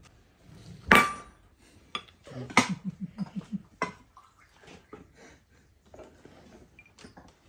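Tableware clinking as a meal is served: spoons, plates and tea glasses knocking together in scattered sharp clinks, the loudest about a second in.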